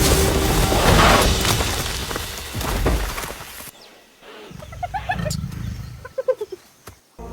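Loud dramatic sound mix with crashing, shattering impacts that cuts off suddenly about three and a half seconds in. A quieter stretch follows with a few short animal-like calls that fall in pitch.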